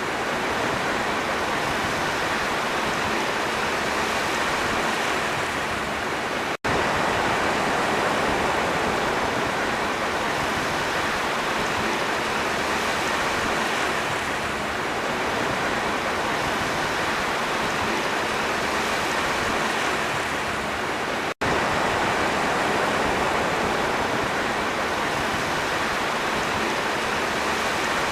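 Sea waves rushing steadily, an even hiss of surf with only slight swells in level. The sound drops out for an instant twice, about six and a half seconds in and again about twenty-one seconds in.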